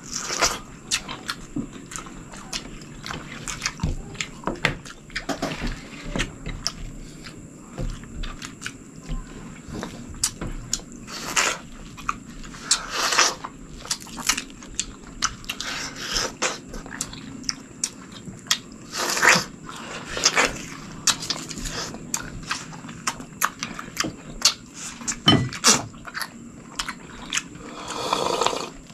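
Close-miked mouth sounds of people biting into and chewing juicy yellow watermelon: wet crunches, smacks and slurps, with several louder slurps in the middle and a sip from a glass near the end.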